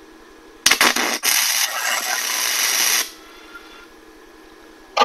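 Flux-core wire-feed welder arc: a few stuttering starts, then about two seconds of steady crackling that cuts off suddenly. A single sharp click at the very end.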